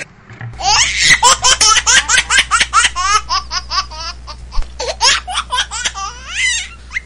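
High-pitched giggling laughter in a fast run of short rising syllables, about four or five a second, starting about half a second in.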